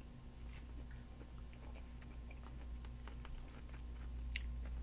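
A person chewing a mouthful of grilled zucchini: faint wet mouth sounds with small scattered clicks, and one sharper click near the end.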